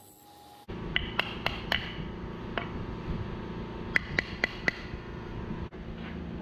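Sharp wooden knocks, four in quick succession, a single fainter one, then four more, over a steady machine hum in the workshop.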